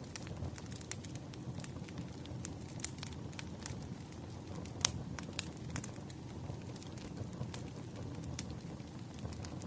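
Campfire crackling: irregular sharp pops over a steady low rumble, with one louder pop about five seconds in.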